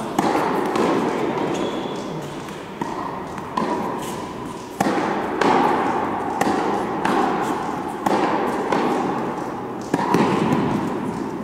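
Tennis balls being struck by rackets and bouncing, about one sharp pop a second, each followed by a long echo in the indoor tennis hall.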